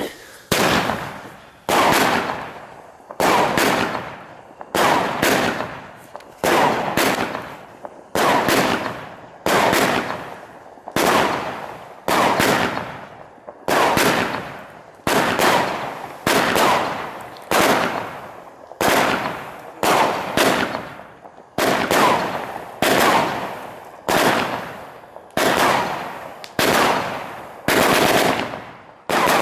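Dark Raven firework battery (cake) firing its shots one after another, about one loud bang a second, each bang fading away before the next.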